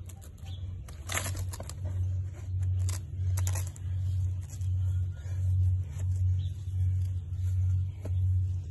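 Climbing rope and gear rustling and scraping as a climber is belayed up a rock face, over a low pulsing hum that repeats about every three-quarters of a second.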